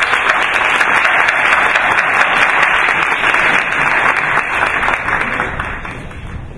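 Audience applauding, steady and loud, tapering off near the end.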